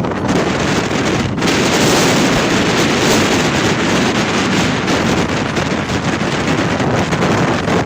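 Strong wind buffeting the microphone: a loud, steady rushing noise, with a brief dip about a second and a half in.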